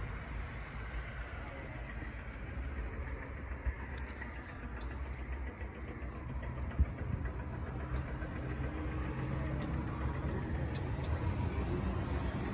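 A 1.6-litre Toyota Altis engine fitted in place of the original, idling steadily with the hood open.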